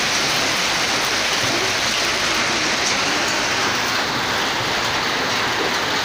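Heavy rain mixed with hailstones falling on paving, plants and the street: a dense, steady patter.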